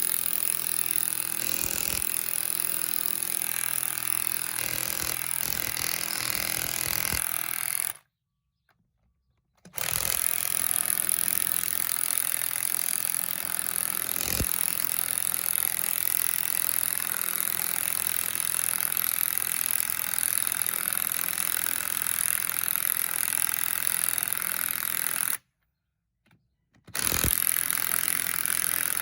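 1/2-inch cordless impact wrenches (a brushed Bauer and a brushless Milwaukee M18) hammering steadily as they drive lag bolts into wood. The hammering stops abruptly twice for a second or two, then resumes.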